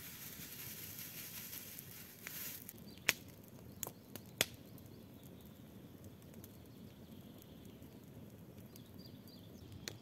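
Wood campfire burning, with a steady low hiss and a few sharp crackling pops, three of them close together about three to four and a half seconds in.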